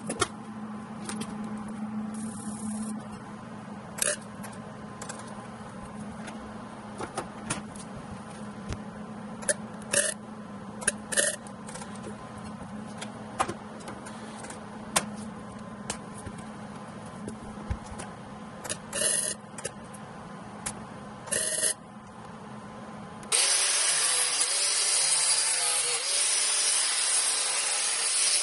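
Scattered knocks and clatter of tools being handled over a steady low hum, then about 23 seconds in an angle grinder starts, loud, and cuts into PVC pipe, its pitch dipping and wavering under the load.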